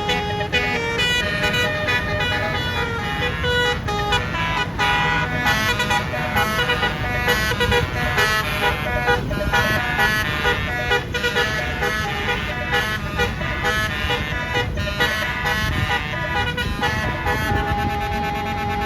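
Indonesian bus 'basuri' telolet horn playing a fast tune of short, changing notes over a low engine rumble, with one note held longer near the end.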